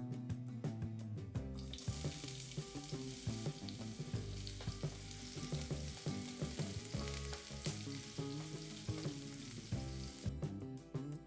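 Food sizzling in hot oil in a frying pan, a steady hiss that starts about two seconds in and stops about a second before the end, over soft background music.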